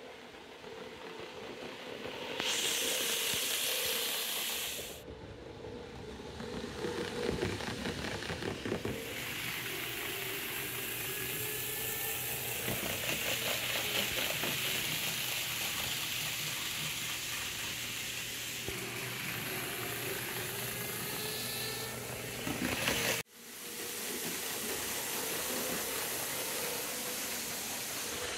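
N gauge model Eurostar running along the layout's track: a steady hissing whir with fine rattling wheel noise. It breaks off suddenly about three-quarters of the way through, then picks up again.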